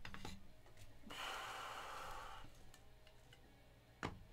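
A long breath out near the microphone, starting about a second in and lasting over a second. Light handling clicks from cards and foam pads come at the start, and one sharp click near the end.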